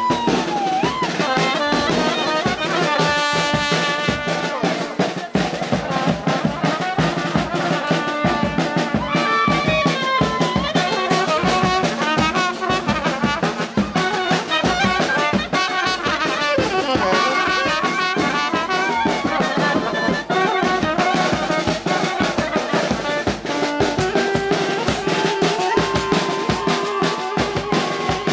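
Lively traditional Balkan brass band music: trumpets and trombones carry a melody with sliding notes over a steady drum beat.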